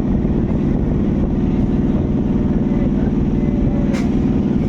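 Electric suburban local train under way, heard from inside the coach: a steady loud rumble and rattle of wheels and carriage, with one sharp click about four seconds in.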